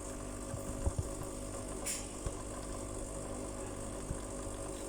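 Coffee machine running after a repair, a steady buzzing hum with a few light clicks and a brief hiss about two seconds in.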